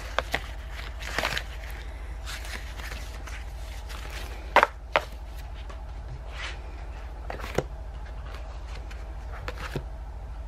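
Sticker sheets and papers being handled and rummaged through: scattered rustles and a few sharp taps and clicks, the loudest a pair about halfway through, over a steady low hum.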